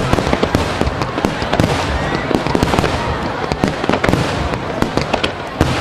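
Aerial fireworks in a continuous star mine barrage: shells bursting in rapid succession, a dense, unbroken run of bangs and crackles with no pause.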